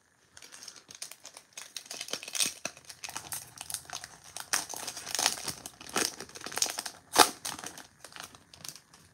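Wrapper of a Topps 2022 Series 2 baseball card pack being torn open and crinkled by hand: a busy run of crackles and tearing, with one sharp, loud crackle about seven seconds in.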